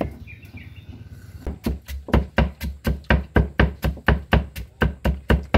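Heavy cleaver chopping lemongrass on a thick wooden block: a steady run of sharp, thudding strokes, about four a second, that starts after a quieter first second and a half.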